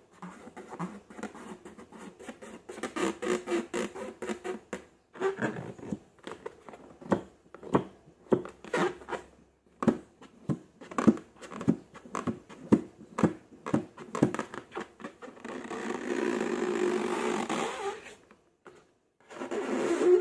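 Slime being squeezed and worked by hand: a quick run of wet pops and squelches, then a steadier squishing rasp from about fifteen seconds in that stops briefly and starts again near the end.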